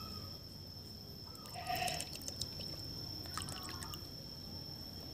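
Faint drips and small splashes of liquid poured from a bottle cap into a plastic bucket of water, followed by a hand stirring the water.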